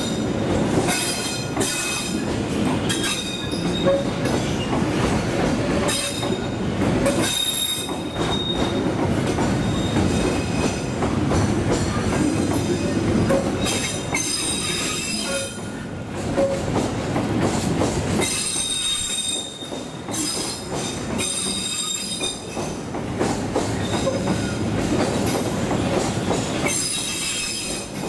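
Freight train arriving slowly, a steady rumble of wheels on rail with some clickety-clack, its wheels squealing again and again in high shrill stretches.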